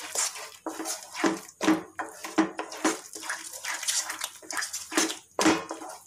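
Wooden spatula pushing and scraping a thick, wet beetroot halwa mixture around a nonstick pan, with squelching strokes about twice a second. The added sugar has melted and loosened the mixture, which is being stirred until it thickens.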